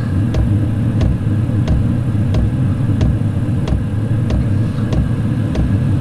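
2 kW Chinese diesel air heater running up to speed just after ignition: a steady low rumble from its blower and burner, with the fuel pump ticking about once every two-thirds of a second.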